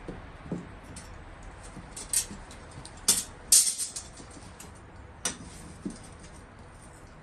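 Metal clinking and jangling in a handful of irregular sharp strikes, the loudest cluster a little over three seconds in, over a steady low hiss.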